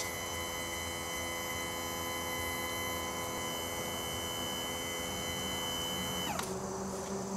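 Electric power-trim pump of an OMC King Cobra sterndrive running as it tilts the drive up, a steady whine. About six seconds in the pitch drops sharply and a lower hum carries on as the drive nears full tilt.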